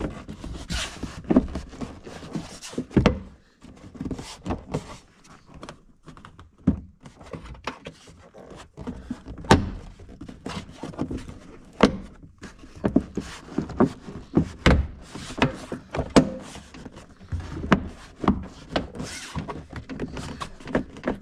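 Plastic C-pillar trim panel of a 2015+ Honda Fit being pressed and snapped back onto its body clips: an irregular series of knocks and thuds with handling rustle between them.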